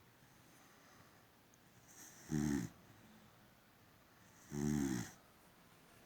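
Boxer dog snoring in its sleep: two loud snores about two seconds apart, each about half a second long, with softer breathing between them.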